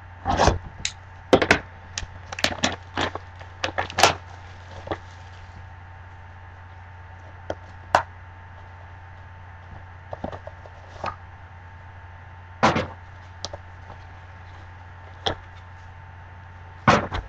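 Plastic wrap being slit and torn off a sealed Triple Threads trading-card box, a rapid run of crinkles and sharp crackles in the first few seconds, then scattered taps and two scrapes as the cardboard box is handled. A steady low electrical hum runs underneath.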